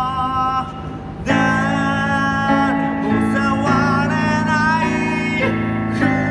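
A male voice singing a pop ballad with electronic keyboard accompaniment, with a brief drop in the music about half a second in before the chords and voice come back in.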